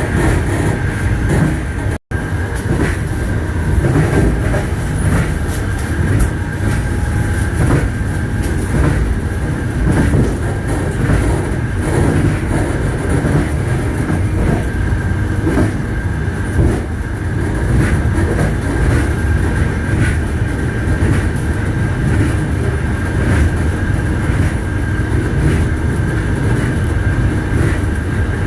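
Train wheels clattering over the rail joints (the clickety-clack of wheels on the rails) above a steady heavy rumble and a thin high hum from the running train. The sound cuts out for an instant about two seconds in.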